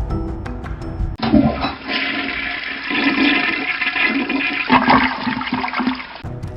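A toilet flushing: a loud rush of gurgling water starts about a second in, runs for about five seconds and stops suddenly.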